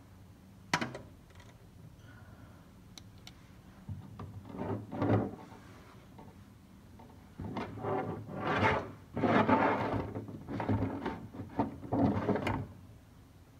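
A sharp click, then several uneven bursts of scraping as a plastic oil drain pan is gripped and slid into place under the car.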